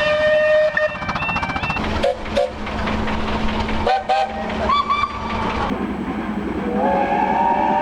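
Steam locomotive whistles sounding in turn: a multi-note chime whistle held until about two seconds in, two pairs of short toots around two and four seconds in, a brief single-note blast near five seconds, then a chime whistle starting near the end, over a steady rushing noise of the locomotives.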